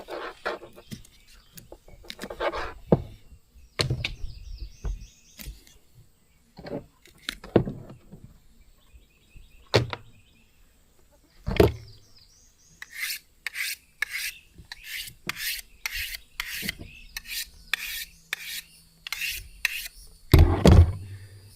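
Rasping scraping strokes, about two a second for several seconds in the second half, with scattered sharp knocks and clatter before them.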